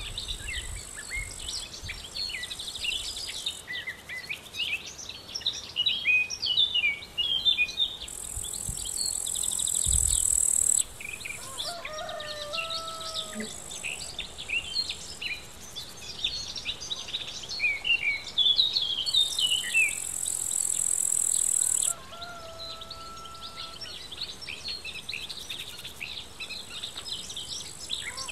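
Small birds chirping and trilling at the water's edge. A high, insect-like buzz swells twice for a few seconds and cuts off sharply each time.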